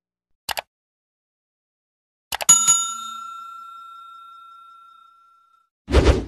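Sound effects of a subscribe-button animation: a quick double mouse click, then a few more clicks and a bright notification-bell ding that rings out and fades over about three seconds, and a short whoosh near the end.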